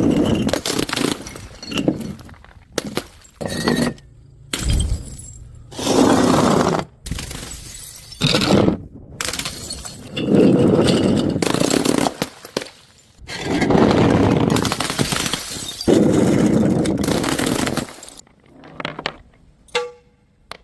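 Glass bottles shattering on hard stairs one after another, a loud crash every two to three seconds, each followed by the tinkle of scattering shards.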